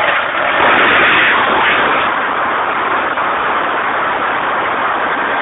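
100 kVA Deutz diesel generator set running loudly and steadily just after start-up, slightly louder for the first couple of seconds.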